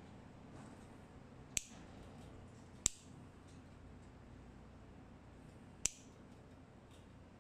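Pet nail clipper snipping through a rabbit's claws: three sharp clicks, the first about one and a half seconds in, the next a little over a second later, the last about three seconds after that.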